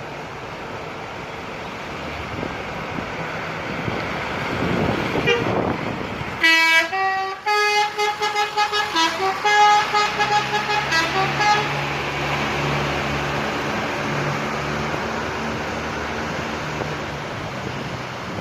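A bus's 'telolet' basuri musical air horn plays a quick tune of short stepped notes for about five seconds, starting partway through, over steady road noise. A low engine hum runs underneath toward the end.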